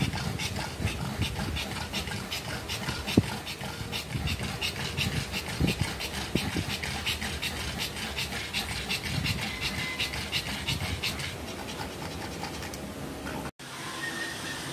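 A pug bitch panting fast and rhythmically, about five breaths a second, soon after whelping; the panting fades out near the end. One sharp click sounds about three seconds in.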